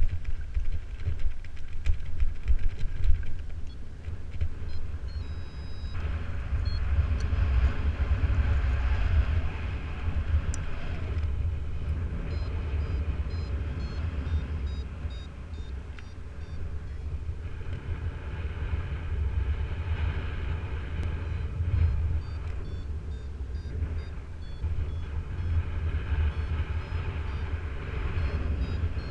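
Wind buffeting the microphone in strong, steady wind during a soaring flight, a heavy rumble that swells and eases. Short high beeps repeat in runs through most of it, typical of a flight variometer signalling lift.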